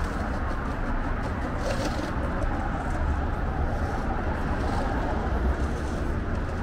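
Steady traffic noise from a wide multi-lane city road, mostly a low rumble of passing cars.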